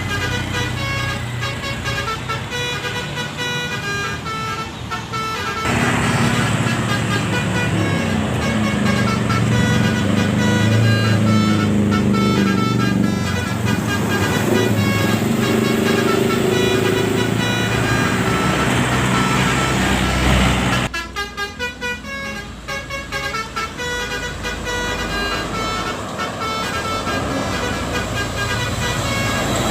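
Telolet bus horns, Basuri multi-tone air horns, playing quick melodic runs of notes over running bus engines. The sound changes abruptly to a louder, deeper passage about six seconds in, and back to thinner horn notes about 21 seconds in.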